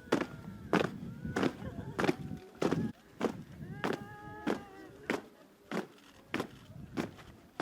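Regular heavy beats, about three every two seconds, with raised voices faintly behind them.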